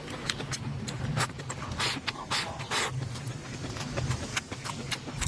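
Close-up eating sounds: chewing with many short, wet clicks and smacks, and a few longer noisy mouth sounds near the middle, over a steady low hum.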